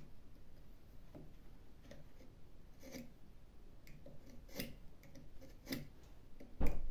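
Marking knife scoring a short line into MDF against a steel rule: a few light scratching strokes and clicks, with a louder knock near the end.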